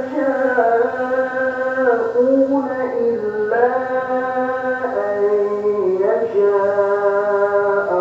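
A chanting voice holds long drawn-out notes that step up and down in pitch, in a melodic, recitation-like style with no clear words.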